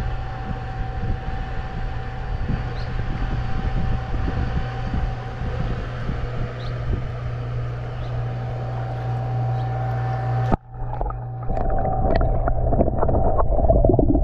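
A small engine droning steadily with a thin whine above it, wind rumbling on the microphone. About ten and a half seconds in it cuts off sharply to muffled underwater sound: faint clicks and crackle under a hum that grows louder.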